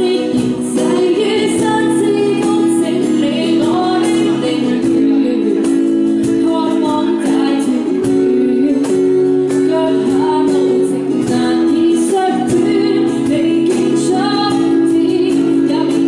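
Live amplified performance of a woman singing a pop ballad over strummed acoustic guitar, with cajón hand-drum strokes keeping the beat.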